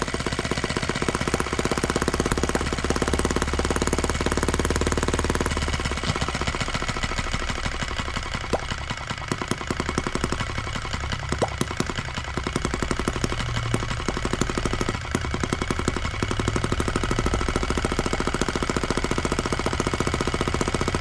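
Miniature single-cylinder model engine running on alcohol fuel, firing in a rapid, steady chatter. Its sound shifts about five seconds in.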